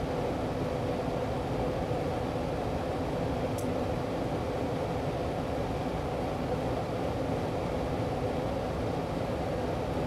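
Furnace and AC air handler blower wheel running at a steady speed, a constant rush of moving air with a steady hum. The blower is in steady state, no longer accelerating.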